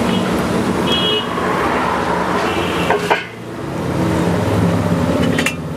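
Highway road traffic: vehicle engines running steadily, with short horn toots about a second in and again near three seconds.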